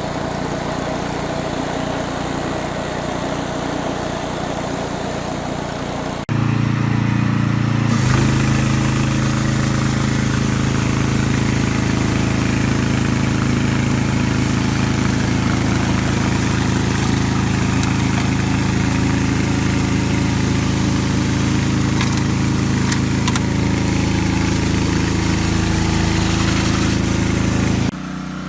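Small petrol engine of a pressure washer running steadily, with a hiss over it. The engine note changes abruptly about six seconds in, turning louder with a stronger low hum, and drops back again near the end.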